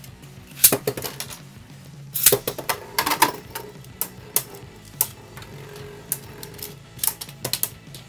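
Plastic and metal Beyblade Burst tops clicking onto a launcher, then launched into a plastic stadium with a burst of clacks about two seconds in. After that they spin and hit each other and the stadium wall in sharp single clacks over a faint whirring, with background music underneath.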